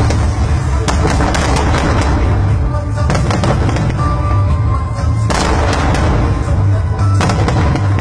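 Fireworks bursting in quick bangs and crackles over a constant deep rumble, with music playing alongside; a louder burst comes a little past the middle.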